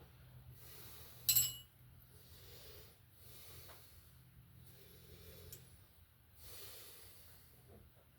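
Faint low steady hum with one sharp, ringing knock about a second in.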